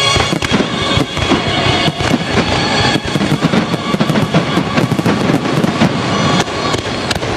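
Fireworks display: aerial shells bursting, many sharp bangs in quick succession.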